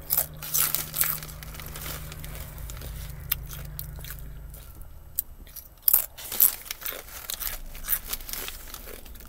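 Kettle-cooked potato chips crunching as they are bitten and chewed, in quick clusters of crunches just after the start and again about six seconds in. A low steady hum underneath fades out about halfway through.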